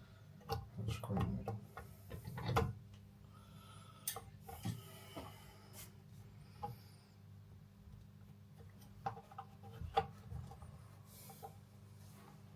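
Scattered clicks, knocks and scraping of hand tools on a basin waste fitting as it is worked loose, busiest in the first three seconds and again around ten seconds in.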